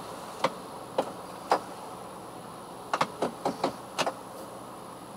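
Faint steady hum inside a 2013 Honda Civic's cabin with the car standing still, broken by about ten sharp, irregular clicks and taps, several of them bunched together around the middle.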